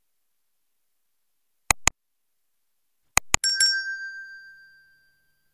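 Subscribe-button animation sound effects: two mouse clicks, then a quick run of clicks and a single bell ding that rings out and fades over about a second and a half.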